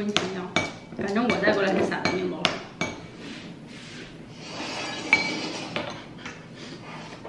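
Metal cutlery clinking against ceramic soup bowls and a plate: spoons dipping into and tapping the bowls, a series of sharp, irregular clinks.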